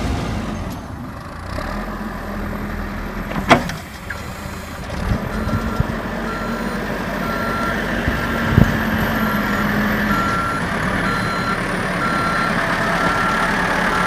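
Caterpillar 416C backhoe loader's diesel engine running while it works snow, with a sharp knock about three and a half seconds in. From about five seconds in, its reverse alarm beeps steadily, about once a second, the signal that the machine is backing up.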